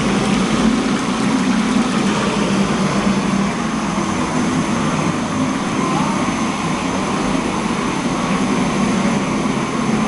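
Steady loud roar of commercial kitchen machinery, with a constant low hum under it.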